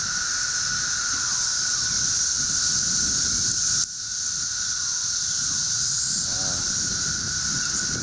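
Dense chorus of 13-year periodical cicadas (Brood XIX): a steady, unbroken high hiss with a lower droning whine beneath it, dropping out for an instant about four seconds in.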